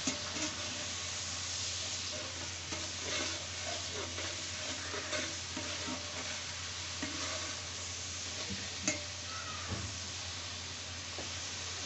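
Sliced onions sizzling steadily as they fry brown in oil in a large metal pot, stirred with a metal spatula that knocks and scrapes against the pot a few times.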